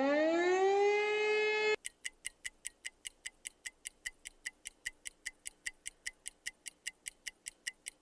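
An air raid siren rising in pitch, cut off abruptly about two seconds in. A countdown timer's clock ticking follows, quick and even at about five ticks a second.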